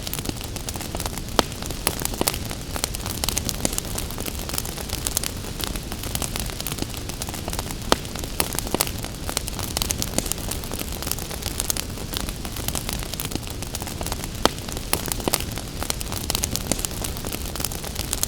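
Wood fire crackling with frequent small snaps and a few louder pops, over a steady hiss of gentle rain.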